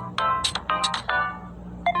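Samsung Galaxy Tab S4 ringtone playing: a run of quick electronic melody notes that stops about a second and a half in, followed by a short beep near the end.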